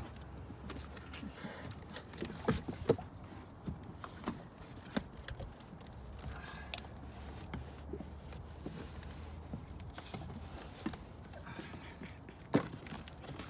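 Scattered knocks and thumps of a taped cardboard-and-wood boat bumping against a plastic floating dock and being pressed as someone climbs into it. Two sharp knocks come close together about two and a half seconds in, and another near the end.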